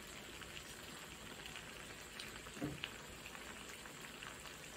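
Tomato sauce simmering in a frying pan: faint, steady sizzling and bubbling with scattered small crackles, and one louder pop about two and a half seconds in.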